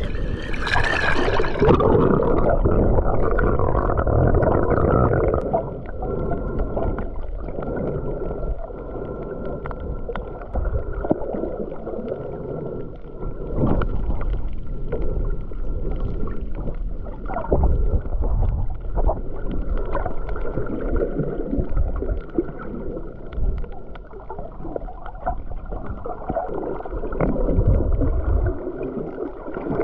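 Water sloshing and gurgling as heard by a camera held underwater while snorkeling, the sound dull and muffled. It turns muffled about two seconds in.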